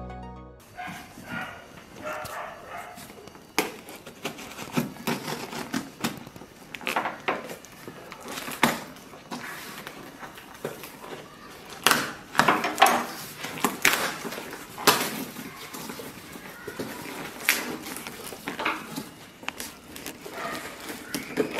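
Cardboard shipping box being torn open by hand: packing tape ripped off and cardboard flaps scraped and rustled, in a run of irregular short rips and knocks.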